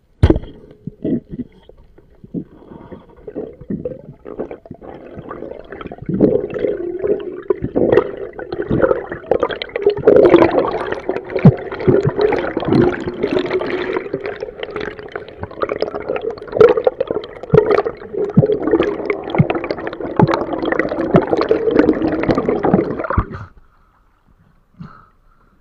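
Underwater water noise picked up by a diving action camera: continuous gurgling with many clicks and knocks, building up about six seconds in and cutting off suddenly near the end as the camera reaches the surface.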